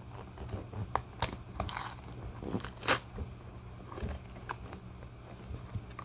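Knife blade cutting through the packing tape and cardboard of a box: a string of short scrapes and rips, with a few sharp clicks as the box is handled.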